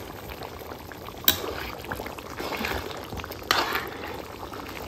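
A ladle stirring a bubbling, watery duck curry in a large iron wok: liquid sloshing and simmering, with a sharp knock of the ladle against the pan about a second in and a louder scrape a little after three and a half seconds.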